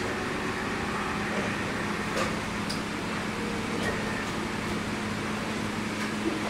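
Steady hum and noise inside a JR 103 series electric commuter train car, with a few faint light clicks.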